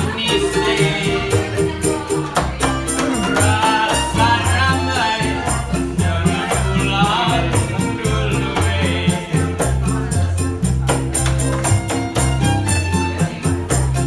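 Live acoustic band in keroncong style: two small ukulele-type guitars strumming in a quick steady rhythm over a plucked cello and upright double bass line, with voices singing in places.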